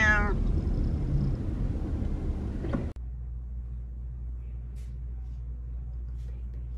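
Low, steady car-cabin rumble around a pet carrier, with a cat meowing once at the very start. About three seconds in, the sound cuts abruptly to a quieter steady low room hum with a few faint ticks.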